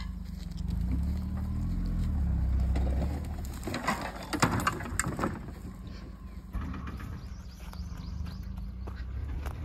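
A small car's engine running and revving up over rough off-road ground, with a cluster of knocks and crunches about four to five seconds in.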